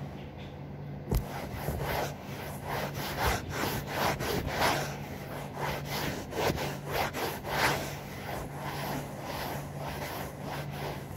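A cloth scrubbing the cream sofa's surface clean in quick, repeated rubbing strokes. A steady low hum runs underneath, and there is a sharp click about a second in.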